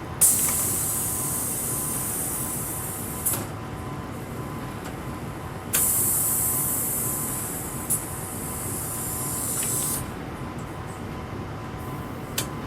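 Two long, loud hisses of released pressurized air, each starting abruptly and tailing off over three to four seconds, with short sharp clicks between them. Under them runs a steady mechanical rumble with a faint steady tone.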